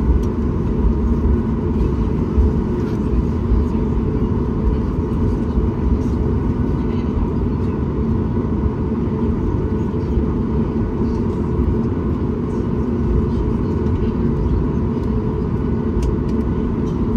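Steady cabin noise of a Boeing 737 MAX 8 taxiing after landing: a low rumble from the rolling airliner and its CFM LEAP-1B engines at idle, with a faint steady tone above it.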